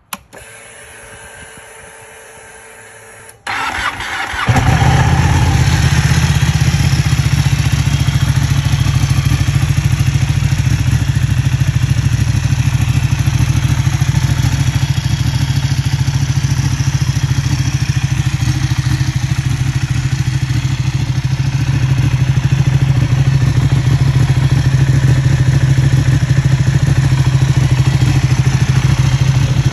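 Ignition key turned on a Ducati 1199 Panigale R with a click, then a quieter steady priming hum for about three seconds. About three and a half seconds in, the starter cranks and the 1198 cc Superquadro V-twin catches within a second, then idles steadily and loudly for the rest.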